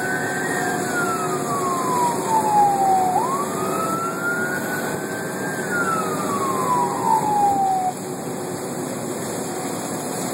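Fire engine's electronic siren heard from inside the cab: two long wails, each climbing quickly and then sliding slowly back down, the siren cutting off about eight seconds in. The truck's engine and road noise run steadily underneath.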